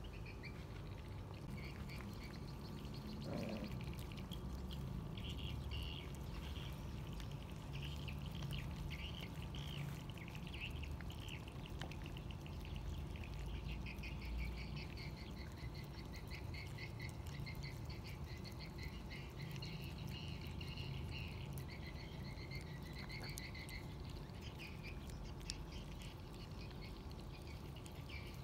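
A chorus of frogs calling in rapid pulsing trains, with a low rumble underneath.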